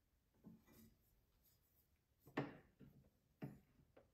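A few faint metal clicks and taps from the blades and chippers of a Freud 8-inch dado set being turned and seated on a table saw arbor, the loudest a little past halfway.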